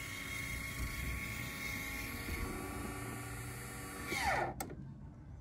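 Electric lid-lift motor of a Hike Crew RV roof vent running with a steady whine as it closes the vent lid. About four seconds in the whine drops quickly in pitch and stops with a click as the lid seats shut.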